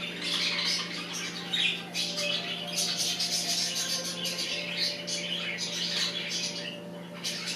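Two budgerigars chattering and chirping continuously, with quick high squawks and warbles, over a steady low hum.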